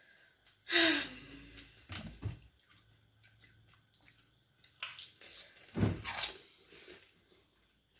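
Pani puri (golgappa) being eaten whole: crisp puri shells crunching and the water inside slurped, in a few short loud bursts about a second in and again around five and six seconds in, with quieter chewing and dripping between.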